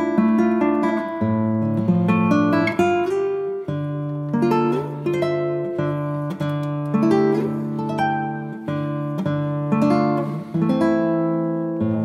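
Background music of plucked and strummed acoustic guitar, a new note or chord struck every second or so.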